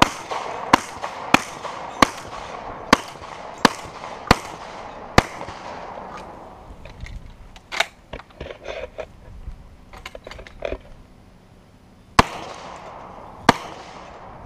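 Shotgun fired in quick succession, about eight shots in roughly five seconds, each followed by a short ring of echo. Then a stretch of small metallic clicks and rattles as the gun is handled and reloaded, and two more shots near the end.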